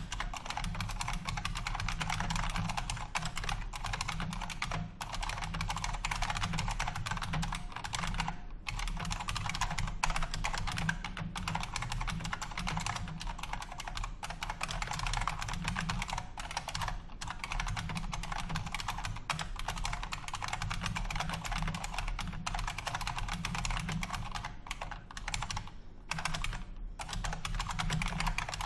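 Continuous fast typing on a Unicomp Ultra Classic buckling-spring mechanical keyboard: a dense stream of sharp key clicks, with a brief pause about a third of the way in and a couple more near the end.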